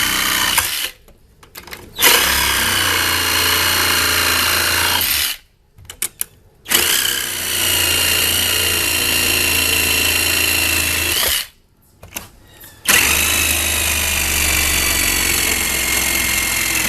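Battery-powered DeWalt reciprocating saw (Sawzall) cutting off the ends of steel carriage bolts. It runs in stretches of three to five seconds with brief stops between, stopping about a second in, again around five seconds in and again around eleven seconds in.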